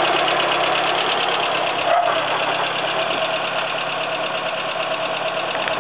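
Citroën Axel 12's air-cooled 1299 cc flat-four (T13/653) idling steadily, slightly louder for the first couple of seconds. It has the hum expected of this engine, though its idle sounds closer to a Citroën 2CV's.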